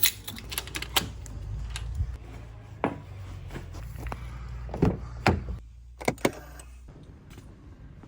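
Vehicle engine running with a low steady hum, under a series of sharp clunks and clicks like doors and fittings being handled; the hum drops away about seven seconds in.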